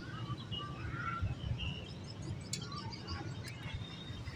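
Small birds chirping in short, scattered calls over a low steady rumble, with a couple of faint clicks in the second half.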